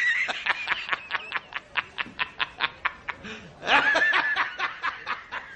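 Snickering laughter: a fast run of short, high-pitched 'heh' pulses, about five a second, breaking into a longer held laugh about four seconds in.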